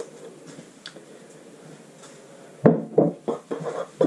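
Faint clicks from a hand-pump oil can as oil is squirted into the engine's cylinder to seal the piston rings for a wet compression test. About two and a half seconds in, a run of loud knocking and clattering from tools being handled in a plastic tray.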